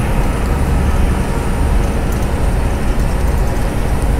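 Steady low rumble of a semi-truck's engine and tyres, heard from inside the cab while cruising at highway speed.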